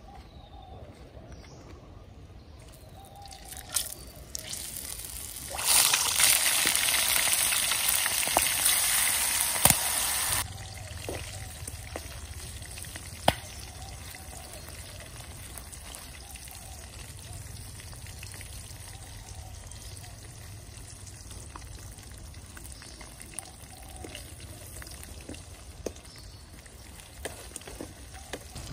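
Hot oil in a wok over a wood fire sizzling loudly for about five seconds as food goes in, then breaking off suddenly to a quieter, steady frying sizzle. A few sharp taps of utensils on the pan.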